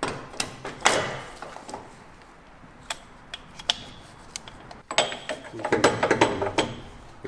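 Scattered light metal clicks and knocks from differential parts being handled: the greased pinion and its bearings going into the rear axle housing.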